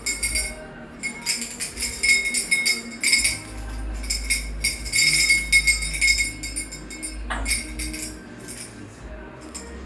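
Small metal cage bell jingling and clanging in rapid bursts as an African grey parrot bites and shakes it, with short pauses between the bouts.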